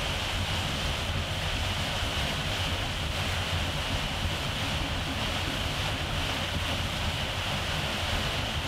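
Boat running at speed on open water: a steady rush of wind and water over a low engine rumble.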